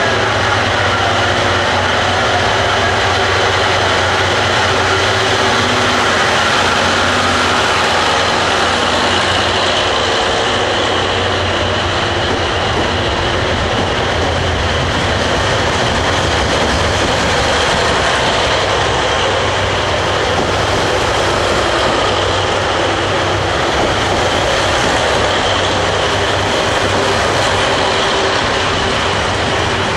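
JNR KiHa 181-series diesel railcars' twelve-cylinder engines running loudly and steadily as the train pulls slowly out of an underground-roofed station platform. One intermediate KiHa 180 car's engine is dead from a fault, with its fault lamp lit, so the sound comes from the remaining cars' engines.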